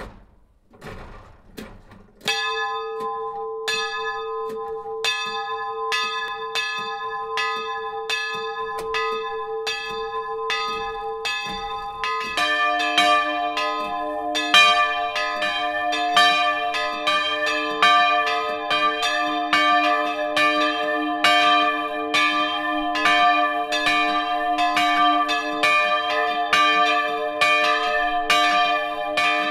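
Two swinging church bells ringing up close in the belfry: one bell begins striking about two seconds in, a stroke roughly every second and a half, and a second, deeper bell joins about twelve seconds in, the two then ringing together with overlapping strokes.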